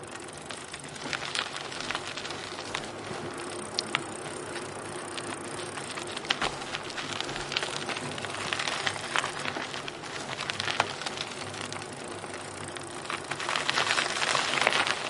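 Bicycle rolling over an unpaved road: tyre noise with many small clicks and rattles, growing louder near the end.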